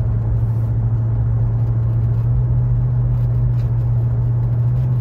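In-cabin drone of a 2012 Chevrolet Avalanche's V8 and drivetrain under way, a steady low hum. This is the low-speed range where the truck shudders and cuts out like running out of fuel, which the owner takes for a failing torque converter.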